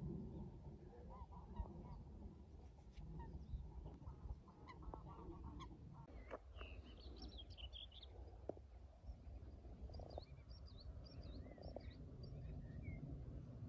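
Faint wild bird calls over a steady low rumble: a few lower calls in the first half, then bursts of higher, quick chirping calls about six seconds in and again near ten seconds.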